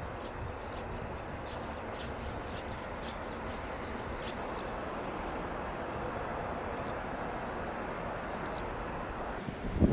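Steady, even running noise of an EF210 electric locomotive standing at the head of a container train, its onboard equipment running, with faint short high chirps scattered through it.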